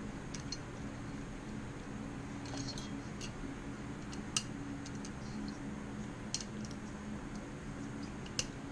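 A few light metal clicks and clinks as the cylinder and cylinder head of a two-stroke motorized-bicycle engine kit are handled and fitted together by hand, the sharpest about halfway through. A steady low hum runs underneath.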